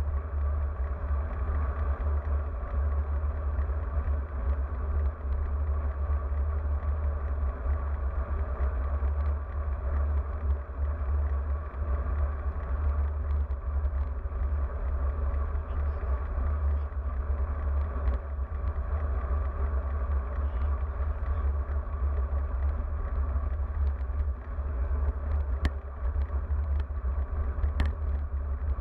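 Steady wind rumble on an action camera's microphone on a moving road bike, mixed with road bike tyres rolling on asphalt. A couple of faint ticks near the end.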